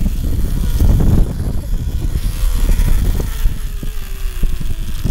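Zipline trolley running along the steel cable: a steady rumble with many rattling clicks, and a faint whine that falls slowly in pitch over the second half.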